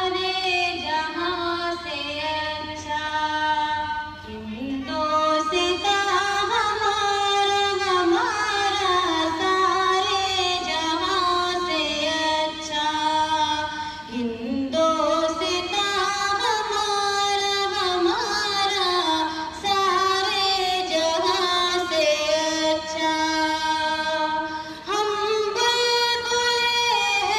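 A high solo voice singing a slow, melodic song with long held notes that slide from pitch to pitch.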